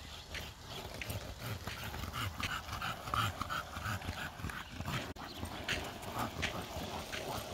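Bulldog riding a skateboard on asphalt: the wheels rumble over the pavement, with short repeated sounds from the dog.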